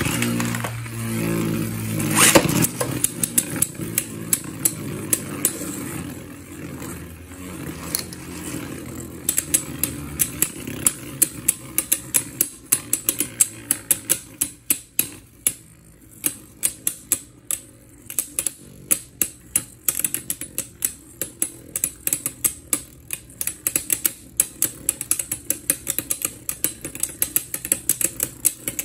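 Two Beyblade spinning tops whirring on the floor of a plastic stadium, with a sharp clash about two seconds in. From about ten seconds on they knock together over and over in sharp plastic clicks, roughly two to three a second.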